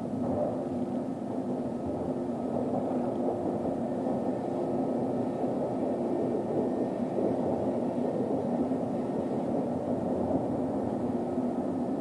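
Toronto subway train running on the rails, heard from inside the car: a steady rumble of wheels and running gear with a faint steady hum above it.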